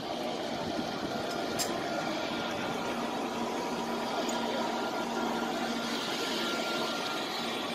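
Steady din of a huge crowd of pilgrims, with a couple of faint steady hum tones underneath.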